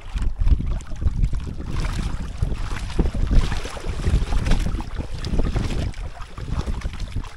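Wind buffeting the microphone in uneven gusts, over seawater sloshing and lapping close by.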